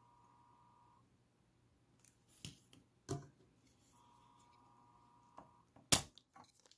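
Spring-loaded desoldering pump (solder sucker) used on a heated pin: a few light clicks, then a loud sharp snap near the end as the plunger fires and sucks up the molten solder. A faint steady high-pitched tone comes and goes twice.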